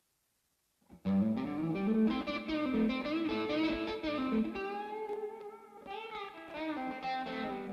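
Electric guitar with a new budget pickup, played through the Amplitube 4 amp simulator. After about a second of silence comes a line of picked single notes with bends, ending on held notes.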